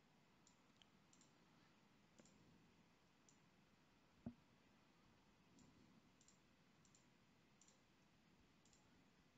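Faint computer mouse clicks, scattered singly and in quick pairs, over near-silent room tone, with one louder short low thump about four seconds in.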